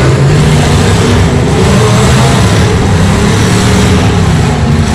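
Loud, continuous engine noise from demolition derby cars running and revving in the arena, several engines at once.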